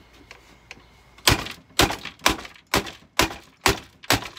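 Seven hard knocks in quick succession, evenly spaced at about two a second, starting about a second in: something being struck repeatedly.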